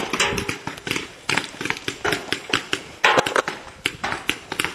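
Paintball markers firing in quick, uneven runs of sharp pops, several a second, with short noisy bursts between them.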